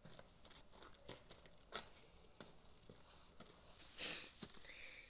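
Soft, irregular footsteps crunching in snow, several small steps a second, with a louder scuff about four seconds in.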